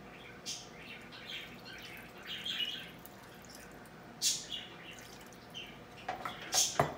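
Wooden spoon stirring a chicken and potato stew in an enameled pot: soft scrapes and wet sloshing in freshly added water, with a few sharp clicks and a louder knock near the end.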